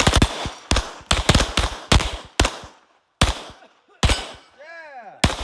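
Pistol fired about ten times in quick succession, several shots in close pairs, each with a short ringing tail. A brief voice calls out near the end.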